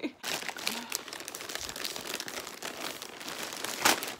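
Subscription mailer bag crinkling and rustling as it is handled and opened, with a louder crackle near the end.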